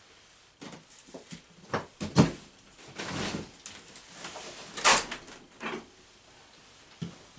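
A string of knocks, clatters and scrapes from rummaging through tools and drawers in a small room, with two louder clacks about two and five seconds in.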